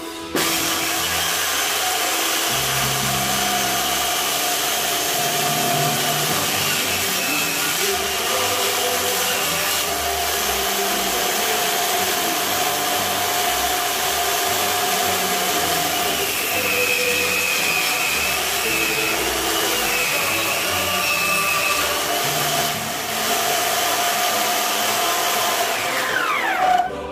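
Electric power tool motor running steadily at speed, a constant whine over a loud rushing noise; near the end the whine drops in pitch as the motor winds down. Background music plays underneath.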